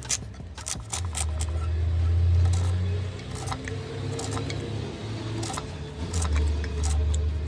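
Small knife paring the green skin off watermelon rind in short strokes, heard as scattered sharp clicks and scrapes. Underneath is a low, steady rumble that swells about a second in and again near the end.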